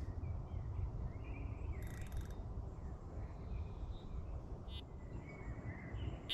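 Outdoor lakeside ambience: a steady low rumble of wind on the microphone with faint birds chirping, broken by short bursts of rapid mechanical clicking about two seconds in, again near five seconds, and at the very end.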